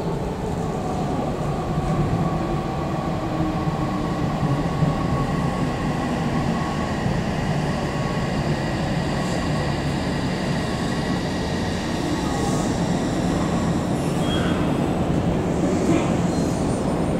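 Odakyu 3000 series electric commuter train pulling into the station and braking to a stop: a steady rumble of wheels on the rails with a continuous high whine over it, and a few short sharp sounds near the end as it halts.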